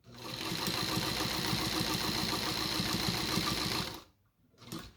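A New Home Paragon class 15 straight-stitch sewing machine sewing at speed on its longest stitch setting. The needle mechanism gives a fast, even rattle over a steady high whine. It runs up at once and stops abruptly about four seconds in.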